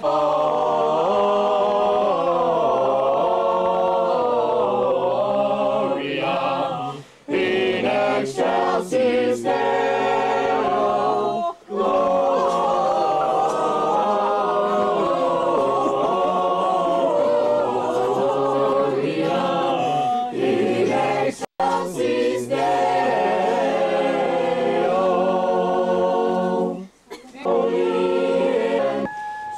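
A small group of carolers singing a Christmas carol together, unaccompanied, with a few brief pauses between lines.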